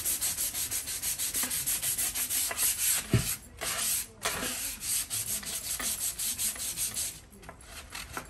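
Sandpaper worked by hand over a stained wooden board in quick back-and-forth strokes, rubbing the coloured stain back toward bare wood to distress it. The strokes break off briefly a few times, a single low bump sounds about three seconds in, and the rubbing goes lighter near the end.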